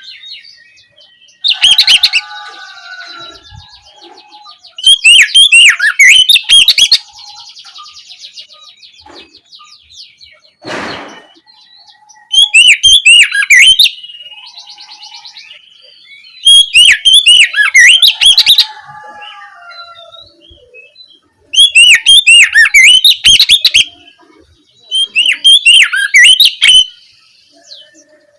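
Oriental magpie-robin (kacer) singing a loud open song in six repeated phrases of about two seconds each, rapid falling whistled notes, with softer buzzy chattering trills between the phrases. A short rushing noise about eleven seconds in.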